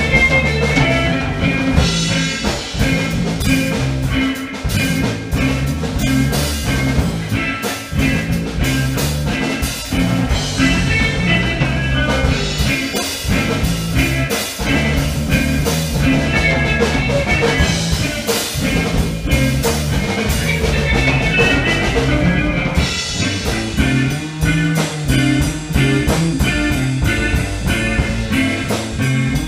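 Live band playing a freeform instrumental jam: a drum kit keeping a steady beat under guitar and a moving bass line.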